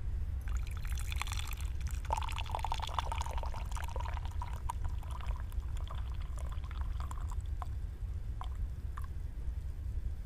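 Tea being poured in a thin stream from a teapot into a cup or pitcher, splashing for about seven seconds and then ending in a few last drips, over a steady low rumble.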